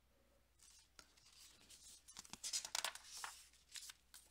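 Paper rustling and scraping as the pages of a picture book are handled and turned: a run of soft rustles and small clicks, busiest in the second half.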